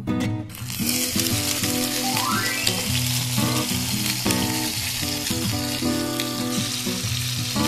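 Ajillo oil sizzling hard in a shallow multi-griddle pan over a gas burner, a dense steady hiss that starts abruptly about half a second in. Background guitar music plays underneath.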